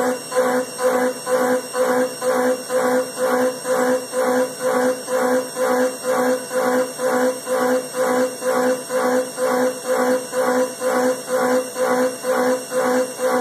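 Haas TM2 CNC toolroom mill cutting a slot in A2 tool steel with a 3/8-inch carbide end mill at 3,750 rpm: a loud, pitched cutting whine that pulses evenly about two and a half times a second as the high-speed toolpath takes the cutter in and out of the cut.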